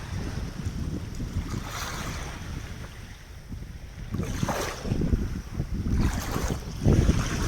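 Ocean waves washing in, with several hissing surges, and wind buffeting the microphone with a ragged low rumble.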